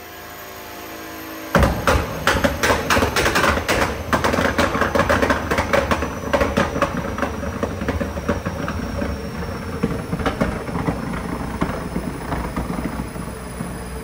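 Nissan R35 GT-R's twin-turbo V6 running quietly, then about a second and a half in it is revved and the exhaust breaks into rapid, loud pops and bangs as it shoots flames. The crackling is densest over the next several seconds and then carries on more thinly.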